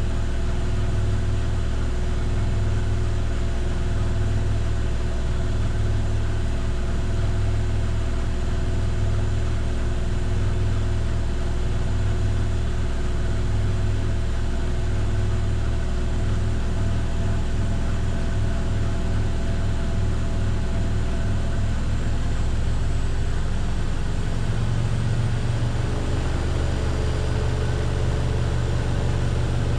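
Miele PW6055 professional washing machine spinning in its final spin: a steady motor-and-drum hum with a throbbing low tone. About three-quarters of the way through, the hum changes pitch and steadies.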